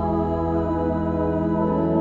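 Church organ playing sustained chords over a low held bass note, moving to a new chord about one and a half seconds in.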